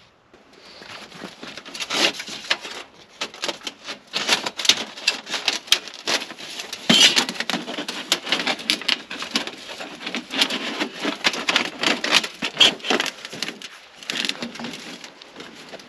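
Heavy canvas tent fabric rustling and being shifted by hand, with irregular light clicks and knocks from a perforated stainless steel baffle and bolts against the stovepipe as it is fitted through the tent's chimney sleeve. It starts about a second in.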